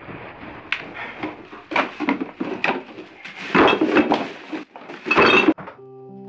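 Irregular rustling and clattering of objects being handled, with a few clinks, loudest past the middle. Near the end this stops and music with sustained notes begins.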